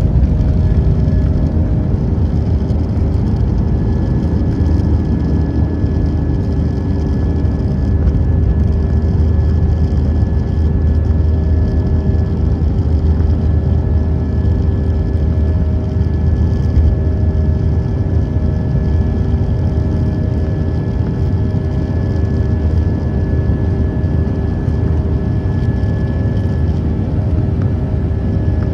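Airbus A319 airliner in motion: steady low noise from its jet engines and the rushing air, with a few steady whining tones above it.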